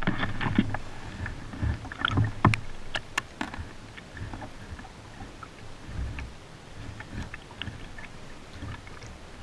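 Scattered light clicks and taps of fishing tackle being handled on a kayak as a sinker rig is lowered, mostly in the first few seconds, with a few low thumps over a faint low rumble.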